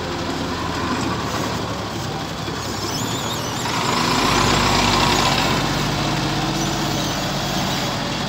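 Loaded Hyundai 5-ton dump truck's diesel engine running as the truck drives slowly past, growing louder about four seconds in as it comes closest.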